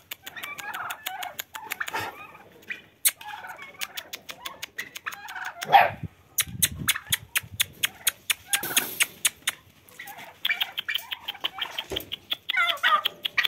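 Young puppies squeaking and whimpering in short, wavering, high-pitched calls, one louder yelp near the middle, with many sharp clicks and taps among them.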